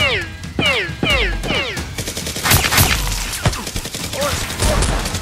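Gunfire sound effects for toy blasters: four quick falling whistles like ricochets in the first two seconds, then a dense volley of rapid shots.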